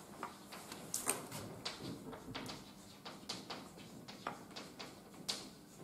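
Chalk tapping and scratching on a chalkboard as words are written by hand: an irregular run of short taps and strokes, several a second, with the sharpest about a second in and again near the end.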